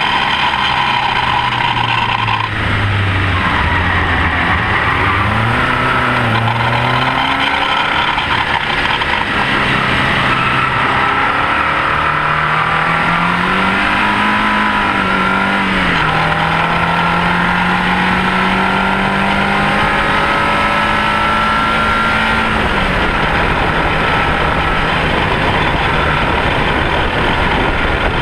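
Rover K-series VVC engine in a race-prepared Mini at full racing speed, its pitch climbing and dropping through several gear changes and lifts, with a long rising pull in the middle and a lift-off near the end. Heavy tyre, road and wind noise from a camera mounted low on the car.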